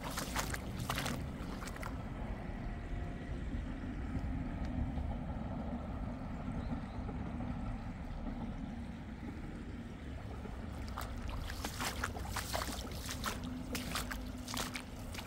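Water rushing in a flooded stream, a steady noisy wash with a low rumble under it, broken by bursts of sharp crackles in the first second or so and again through the last few seconds.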